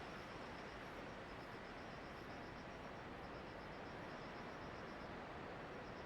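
Faint insect chirping in quick pulsed trains that stop and start again, over a steady rushing hiss.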